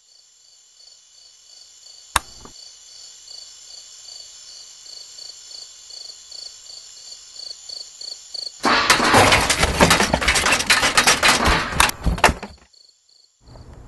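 Crickets chirping in a steady pulsing rhythm that slowly grows louder, with one sharp click about two seconds in. Near the end, a loud, harsh crackling noise breaks in for about four seconds and cuts off suddenly.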